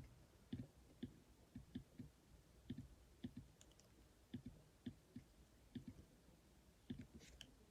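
Faint, soft clicks at an uneven pace, roughly two or three a second, over near silence.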